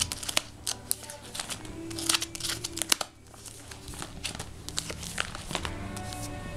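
Plastic sleeve pages of a postcard album crinkling and crackling as they are handled and turned, with a brief dip near the middle. Background music plays underneath.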